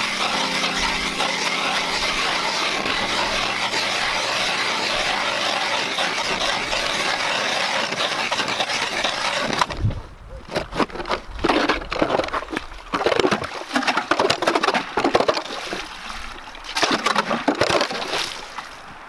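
Hand-cranked ice auger boring through slush and ice: a steady rough hiss for about the first ten seconds, then irregular crunching, scraping and splashing strokes as the blade cuts and is pulled up with slush. Music fades out in the opening seconds.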